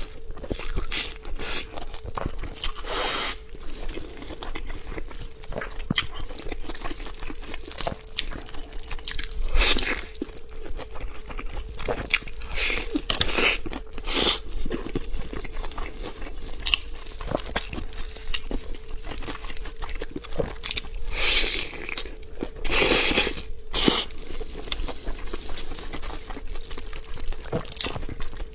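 Close-up eating sounds: someone biting and chewing a 'pistol leg' chicken leg, irregular crunchy bites with several louder bites spread through, over a faint steady hum.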